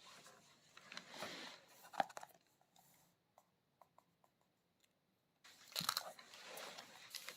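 Crunching, crinkling handling noise with scattered sharp clicks, in two spells with a short quiet gap between them.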